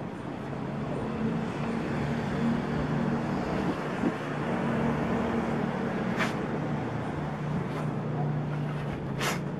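Steady low hum of a motor vehicle engine running, with two sharp clicks, one about six seconds in and one near the end.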